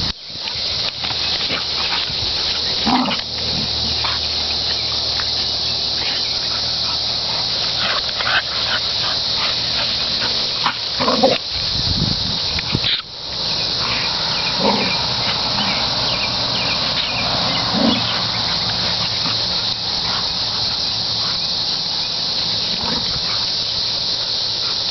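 Two dogs, a pit bull and a pit bull/boxer puppy, play-fighting, with short growls and grunts every few seconds over a steady high insect drone.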